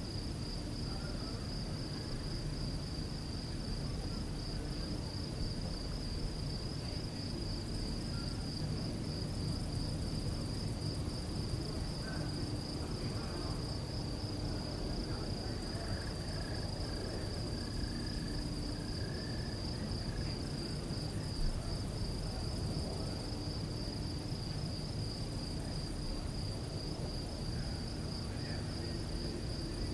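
Crickets chirping in a steady, fast-pulsing high trill, over a low background rumble.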